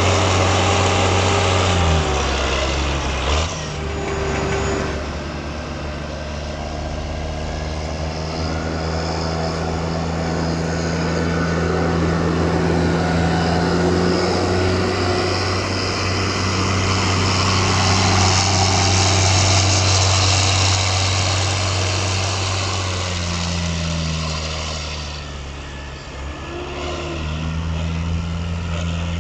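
Heavy diesel farm machinery at work in a maize silage harvest, the engine running steadily under a broad rushing noise. The engine note drops about two seconds in, the rushing swells in the middle, and the note dips and climbs again near the end.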